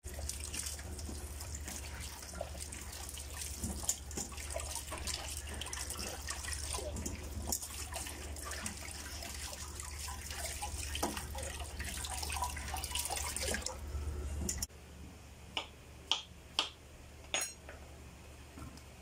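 Kitchen tap water running into a stainless steel sink and over a glass dish, splashing as chayote is rubbed and rinsed under the stream. After the water stops, four short sharp clicks follow, like a knife cutting against a wooden chopping board.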